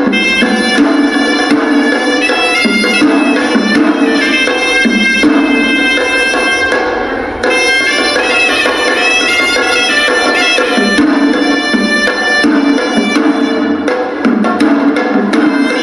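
Hewisi ritual music: a horanewa, the Sri Lankan double-reed pipe, plays a continuous, nasal melody over steady beating of traditional drums.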